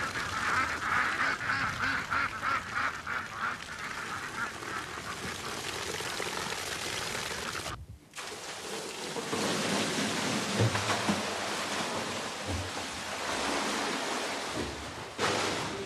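Ducks quacking repeatedly in the first few seconds, over liquid gushing from a wall outlet. After a brief break about eight seconds in, fermented poitín wash pours out of a tipped barrel, gushing and splashing across a concrete floor, with a few dull knocks.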